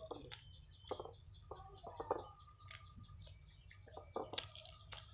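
A bird chirping in the background: a quick, even run of short high chirps, about five a second, that fades out after about three seconds. A few soft clicks and knocks come in between, the loudest near the end.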